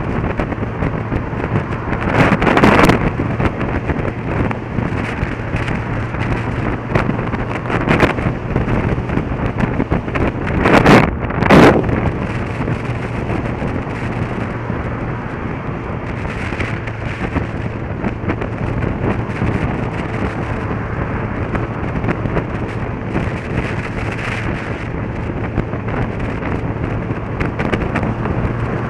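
Motorcycle riding at a steady speed: a low engine hum under heavy wind rush on the microphone, with two brief louder surges about two seconds in and again about eleven seconds in.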